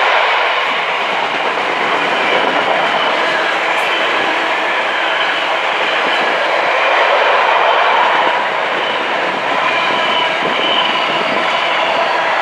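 Container wagons of a freight train passing close by at speed: a loud, steady clatter of wagon wheels on the rails, with faint high ringing tones running through it.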